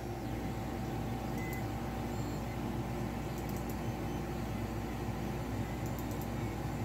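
A steady low hum with a faint steady tone above it, unchanging throughout, and a few faint ticks near the end.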